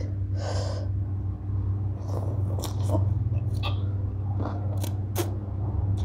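Close-up eating sounds: a person biting and chewing a lettuce-wrapped bundle of rice noodles and papaya salad, with crunching and wet mouth clicks. A short breathy hiss, like a sniff or slurp, about half a second in.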